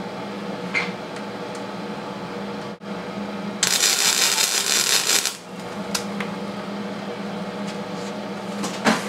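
A welding arc crackling for about a second and a half during a tack weld on the steel engine-mount bracket, starting a few seconds in, over the steady hum of the welder. There is a sharp click near the end.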